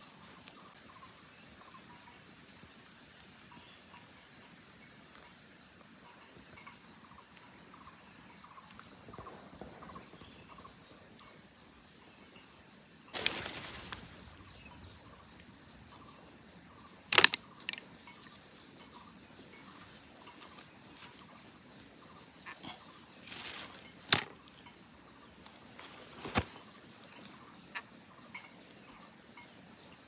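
A steady high-pitched insect chorus, crickets or similar, keeps up throughout. Over it come a few sharp clicks and short knocks of bamboo trap parts being handled and set, the loudest about 17 s in and another about 24 s in.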